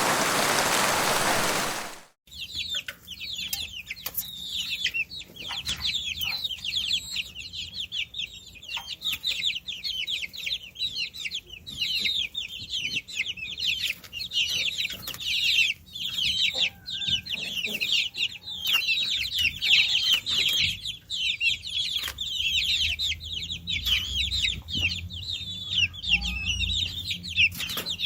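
Domestic chicks (baby chickens) cheeping continuously: many overlapping high, short peeps, each falling quickly in pitch. A loud, even hiss fills the first two seconds before the cheeping starts.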